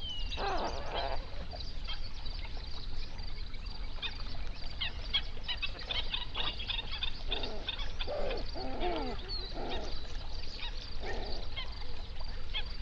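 A flock of flamingos honking in goose-like calls, in a bout about half a second in and again in several bouts through the second half. A run of short, high calls crowds the middle.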